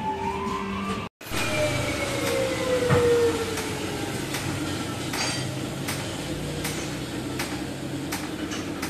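Workshop noise during exhaust fitting: a falling whine in the first few seconds, then sharp metallic taps at a steady pace of about one every 0.7 s over a steady hum.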